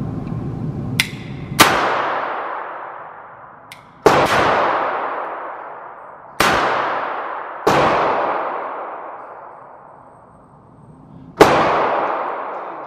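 Five .22 gunshots from a Cobray Pocket Pal over-under revolver, irregularly spaced, each ringing out into a long echo in the indoor range. The loudest comes near the end. A light click comes before each of the first two shots.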